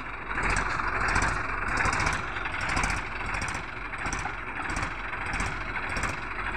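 Tractor diesel engines running under load as a red Mahindra 265 DI tractor tries to tow a stuck Sonalika 750 out of the mud. The engine noise is steady and gets a little louder about half a second in.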